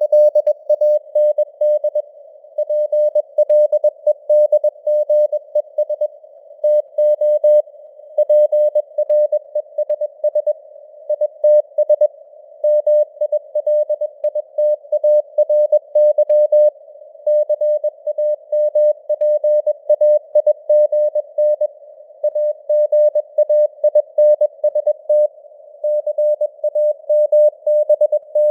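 Morse code at 21 words per minute: a single mid-pitched tone keyed on and off in dots and dashes, with short pauses between words, over a narrow band of simulated radio hiss. It spells out news headlines.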